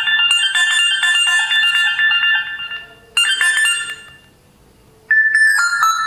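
Built-in ringtones of a Karbonn K Phone 1 feature phone playing through its small speaker, thin and tinny. A melody of quick notes stops about three seconds in and a short snippet follows. After a second of quiet, a different ringtone starts near the end as the tones are previewed one after another.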